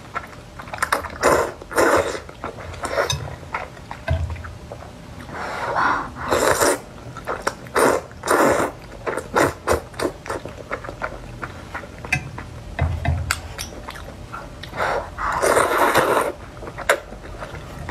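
Close-up slurping of luosifen rice noodles in broth. It comes as a run of slurps, the longest about a second and a half near the end, with wet smacking and chewing clicks between them.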